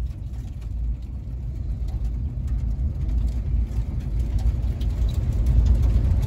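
Low, steady engine rumble heard from inside a vehicle cab, growing gradually louder.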